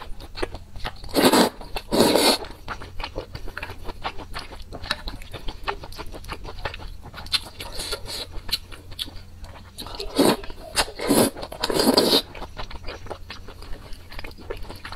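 Close-miked eating of wide noodles in chili oil: loud slurps about a second in and again about two seconds in, and three more near two thirds of the way through, with wet chewing and small mouth clicks between.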